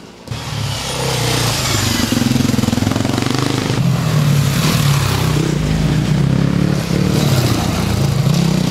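Enduro dirt bike engines revving and easing off as the bikes ride by on a dirt track, with the revs climbing near the end.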